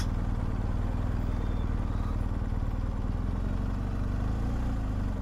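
Motorcycle engine running steadily at low speed, a low, even engine note as the bike rolls along slowly.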